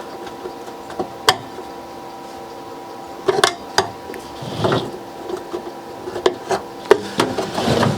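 A screwdriver prying at the seam of a portable record player's case, making sharp clicks and knocks with a few short scrapes, over a steady background hum.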